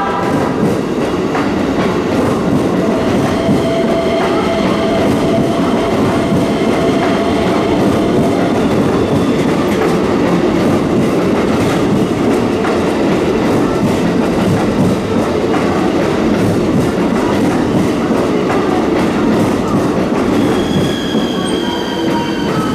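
Electric train running past at close range, its wheels clattering over the rail joints in a steady stream of clicks. A thin, high tone from the wheels or motors comes in near the end.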